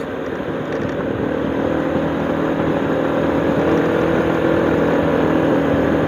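Motorcycle engine running steadily while riding along a narrow road, heard from the bike's onboard camera, getting gradually louder.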